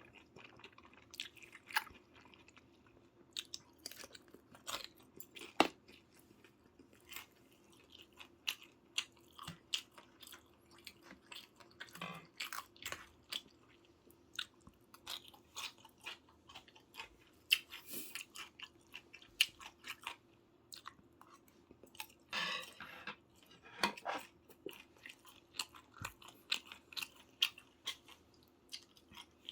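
Close-up chewing and eating of soy-braised chicken (jjimdak), with many short, irregular clicks and smacks.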